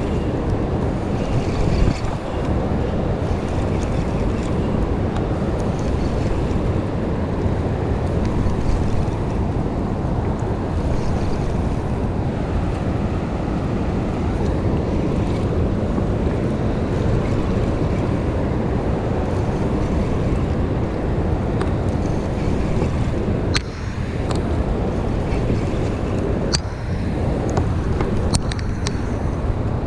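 Steady wind buffeting the microphone over the rush of choppy river water, with a few sharp clicks near the end.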